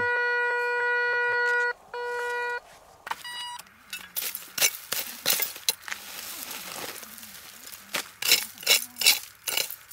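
Metal detector sounding a steady electronic signal tone, then briefly again, the sign that it has found a metal target. From about four seconds in, a small hand digging tool chops into the dry dirt bank, about ten sharp strikes.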